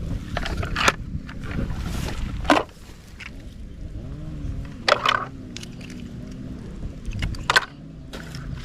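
Plastic toy trucks being handled and rolled, with a low rolling rumble and sharp clicks and knocks. For a few seconds in the middle it goes quieter and a low wavering tone is heard.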